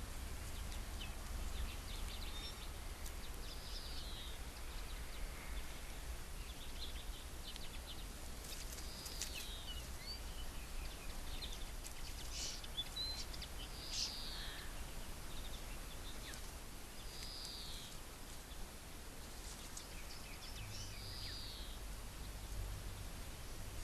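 A bird repeats a short arched call every few seconds, with scattered small chirps and ticks between, over a steady low rumble.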